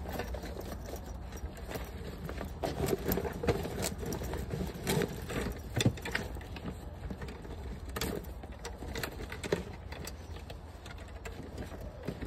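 Handling noise from fitting a Milwaukee fabric bucket organizer around a plastic bucket: scattered rustles, scrapes and short clicks, busiest in the middle, over a steady low hum.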